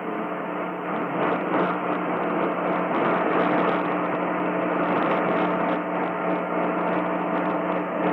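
AM radio audio with a steady hiss of static and a low hum, with a few faint steady tones under the noise.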